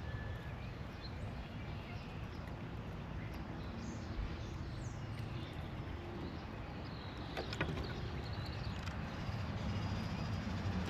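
Outdoor ambience: a steady low rumble with faint, scattered bird chirps, and a sharp click about seven and a half seconds in.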